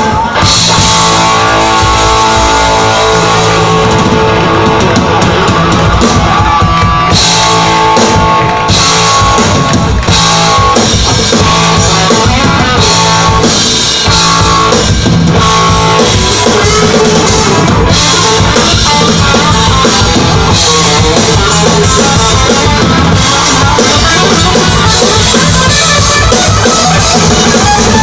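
Live rock band playing loud: electric guitars, bass guitar and drum kit.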